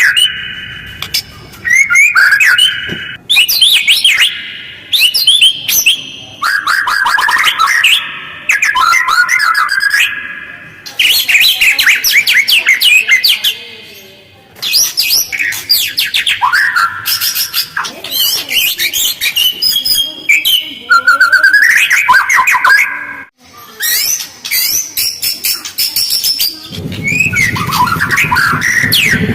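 White-rumped shama singing fast, harsh, chattering phrases separated by short pauses. A low rumble comes in near the end.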